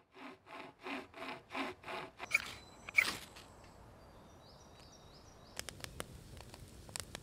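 Hand saw cutting through a log, about six quick even strokes, followed by two sharp cracks. Near the end, the scattered pops and crackle of a wood campfire.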